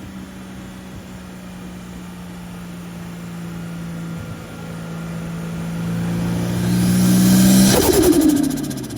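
Turbocharged Toyota 1G-FE straight-six pulling under load, getting louder as a rising turbo hiss builds. About eight seconds in the throttle is lifted with a burst of turbo compressor flutter, and the revs fall quickly.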